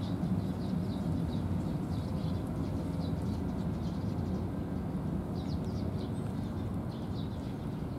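Small birds chirping repeatedly over a steady low outdoor noise.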